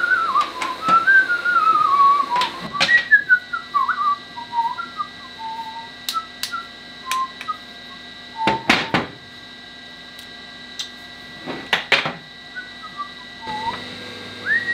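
A person whistling a meandering tune, continuous for the first few seconds and then in scattered short notes, over a faint steady hum. Several sharp metallic knocks fall in between, loudest around the middle and near the end.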